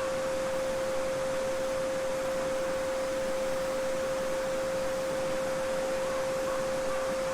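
A steady 528 Hz pure sine tone held without change, over the even rush of a babbling brook.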